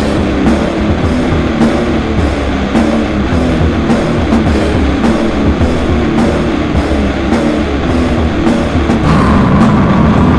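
Slam/sludge metal: heavily distorted, low-tuned guitars over pounding drums, with hits landing about twice a second. About nine seconds in a steady high ringing tone, like a noise or feedback layer, joins the mix.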